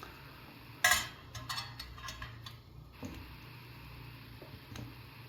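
A sharp click of a small hard object set down about a second in, then a quick run of lighter clicks and taps, with a few faint ticks later: tools and a just-removed component handled on a workbench.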